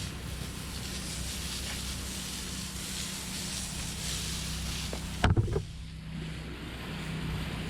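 Pressure-washing rig running steadily, its engine humming under the hiss of water spraying. About five seconds in there is a short loud knock, and the spray hiss stops while the engine keeps running.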